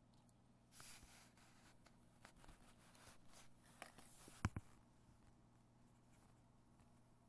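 Quiet handling sounds: faint rustling and light clicks of small plastic toy minifigures being moved about on a wooden table, with two sharp taps about four and a half seconds in, then only a low steady hum.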